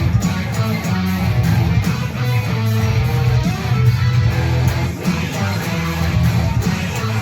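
Guitar-driven music playing steadily, with strummed guitar over a strong bass line.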